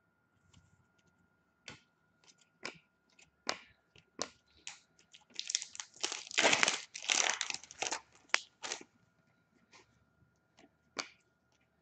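Hockey card foil pack torn open and its wrapper crinkled, with sharp clicks of cardboard cards being flicked and shuffled through before and after.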